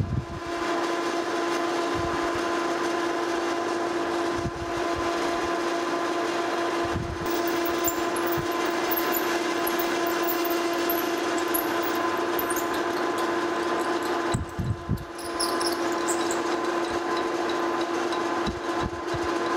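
Metal lathe running with a steady hum while a 3/8-inch twist drill, fed from the tailstock, drills through a flame-cut steel plate spinning in the chuck. Faint high squeaks come and go through the middle, and the sound dips briefly about fifteen seconds in.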